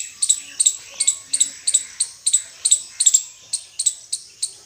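Indian squirrel chirping: a rapid, evenly repeated series of sharp, high-pitched chips, about three to four a second.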